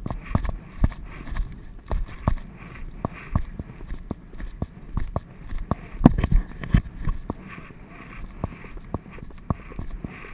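A horse's hooves drumming on grass turf at a canter, heard from the saddle, in a steady rhythm of about two beats a second.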